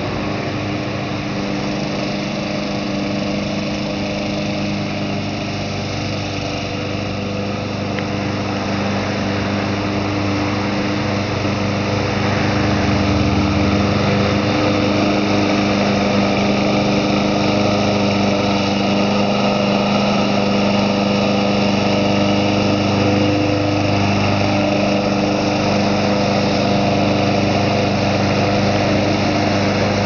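Small single-cylinder 5 hp Briggs & Stratton engine of a Snapper lawn mower running steadily, getting a little louder about twelve seconds in.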